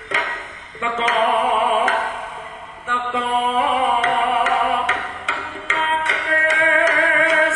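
Live jaranan gamelan music: sharp drum strokes under a loud, held melody line that wavers in pitch.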